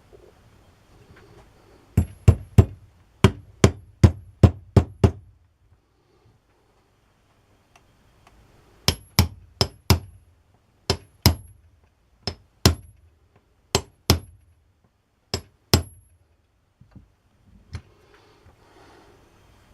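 Hammer tapping a part into place during a hand-drill rebuild. There is a quick run of about nine sharp taps, a pause, then about a dozen more coming mostly in pairs, and a few light taps near the end.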